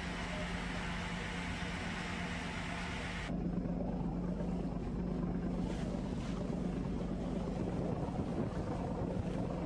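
Steady drone of a search vessel's engine under a rushing wind-and-water hiss; the hiss thins out suddenly about three seconds in.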